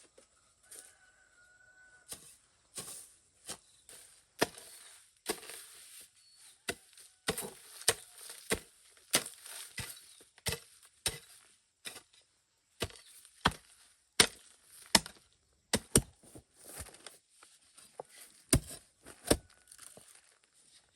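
Repeated chopping with a blade: sharp, irregular strikes about one to two a second, with a short pause around the middle.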